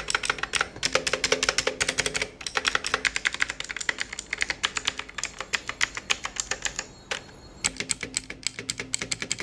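Fast, continuous typing on a Bajeal K100 mechanical keyboard fitted with a budget set of replacement keycaps: rapid clicky keystrokes, with a short pause a little after seven seconds in.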